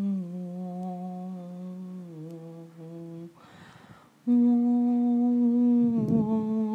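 A person humming long, steady held notes. The pitch steps down slightly twice, then there is a short breath about three seconds in. The humming resumes on a higher note, with a brief low rumble under it near the end.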